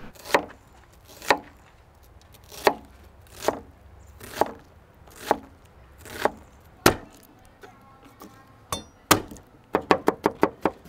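Chef's knife chopping an onion on a plastic cutting board: single sharp cuts about once a second, then a quick run of rapid chops near the end.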